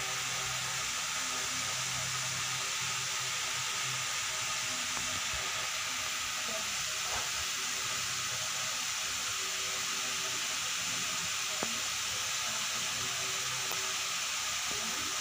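Steady hiss with a faint low hum beneath it, unchanging throughout.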